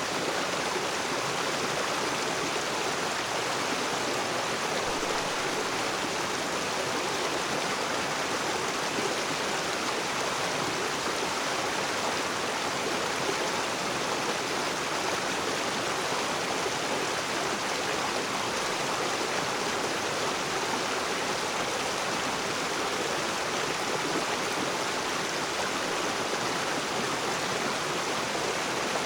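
River water rushing steadily over rocks, an even, unchanging rush.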